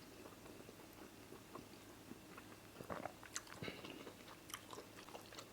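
Faint chewing and soft mouth clicks of someone eating amala with egusi soup, the small clicks coming more often in the second half.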